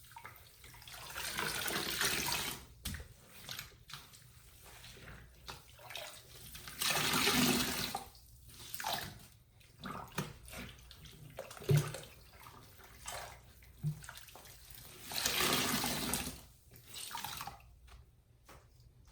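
Wet sponges being squeezed, water gushing out in three long surges with shorter squelches between them.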